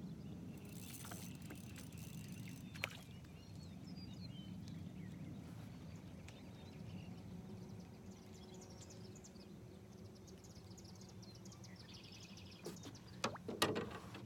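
Quiet pond-side outdoor ambience: a low steady rumble with faint bird chirps. A few knocks near the end.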